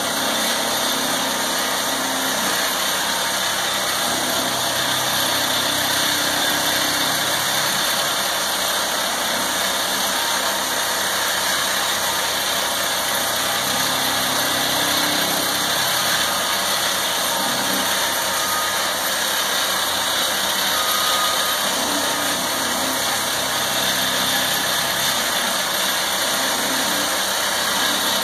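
Heavy construction machinery running steadily: the engine and hydraulics of a tracked aggregate pier rig and a John Deere 323D compact track loader working gravel, with a constant strong hiss over the engine noise.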